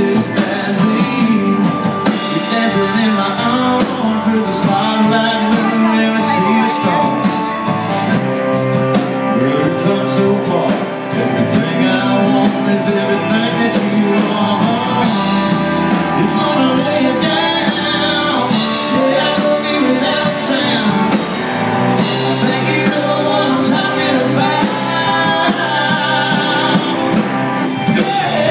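A live country band playing: a woman singing over acoustic and electric guitars, keyboard and a drum kit with a steady beat, heard from the audience in a hall.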